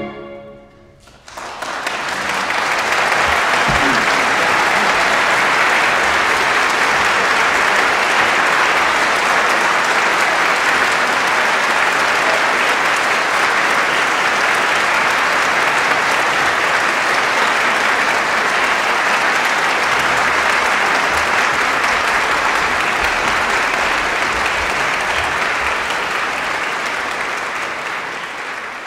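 The final chord of a string quartet dies away, and about a second in an audience breaks into applause. The clapping quickly builds to a steady level and begins to fade near the end.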